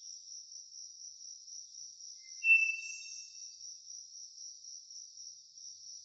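Insects trilling steadily in a high, pulsing chorus, with one short whistled bird note about two and a half seconds in.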